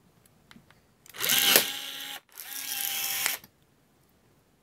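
Milwaukee M12 cordless rivet gun setting a 1/8-inch aluminum rivet: its motor runs twice, each time quickly rising in pitch and then holding a steady whine for about a second.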